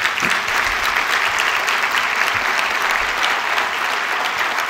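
An audience applauding, many hands clapping in a dense, steady patter.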